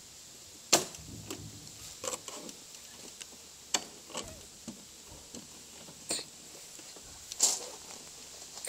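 Scattered clicks and light knocks from a snowmobile's plastic hood and its latches being handled as the hood is opened, the loudest knocks about a second in and near the end. The engine is off.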